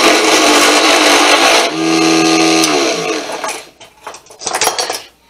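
Gouge roughing a redwood blank spinning in a Sanjiang mini lathe: a loud, rough shaving hiss for about two seconds, then the lathe's small motor humming on its own as the tool comes off the wood. About three seconds in the motor's pitch falls away as the lathe winds down, followed by a few light clicks and knocks.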